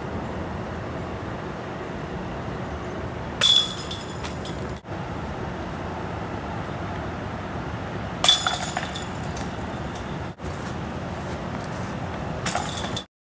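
Disc golf discs striking the hanging chains of a metal disc golf basket three times, each a short, bright metallic jangle and rattle, about four seconds apart, over a steady background hiss.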